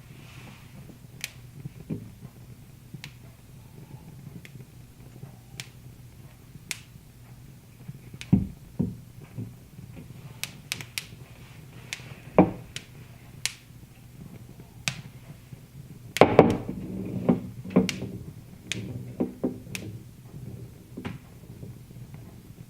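Wood fire crackling: irregular sharp pops over a low steady rumble, with a denser, louder flurry of pops about two-thirds of the way through.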